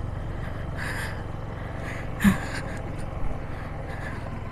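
Yamaha MT-15's single-cylinder engine running low and steady while the bike is manoeuvred at slow speed, with two short sharp breaths about one and two seconds in.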